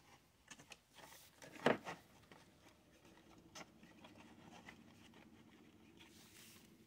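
Thin plastic model pieces being handled and pressed into place: soft scrapes and small clicks of plastic against plastic, with one louder knock about one and a half seconds in.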